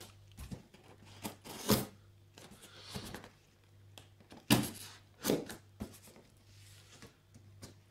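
A delivery package being handled and picked at by hand: scattered knocks, rustles and scrapes every second or so, over a faint steady low hum.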